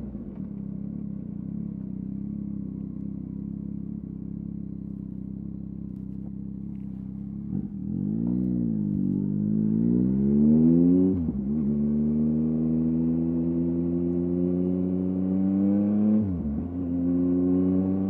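2023 Yamaha MT-09's 890 cc inline-three through a LeoVince LV Race exhaust, holding a steady cruising note, then pulling harder from about halfway through. The note rises and drops sharply twice as it shifts up through the gears.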